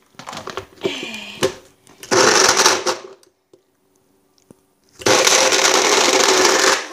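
Personal bullet-style blender run in two short pulses, about a second and then nearly two seconds, chopping gummy candies in water into mush. A few knocks come first as the cup is set on the motor base.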